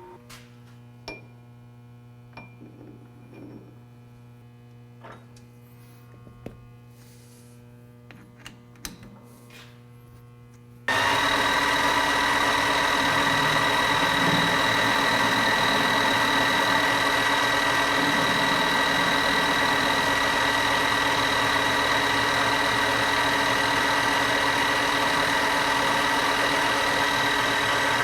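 A faint electrical hum with a few light metallic clicks and taps, then about eleven seconds in a machine tool's motor comes on suddenly and runs loud and steady, with an even whine.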